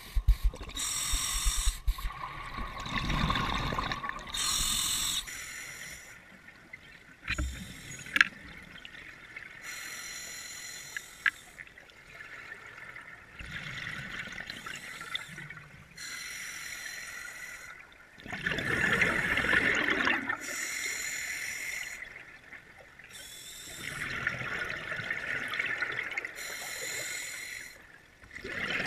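Scuba diver breathing through a regulator underwater: hissing inhalations alternate with bubbling exhalations, a breath every few seconds.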